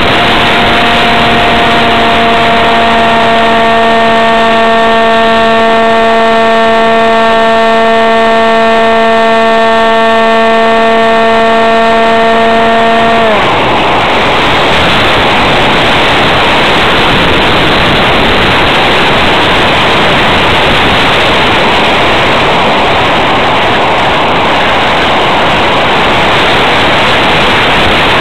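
Electric motor of a ParkZone F-27B Stryker RC flying wing running at a steady high whine, then about 13 seconds in throttled back, its pitch sliding down until it stops. Loud rushing air over the airframe and microphone fills the rest as the plane glides and dives unpowered.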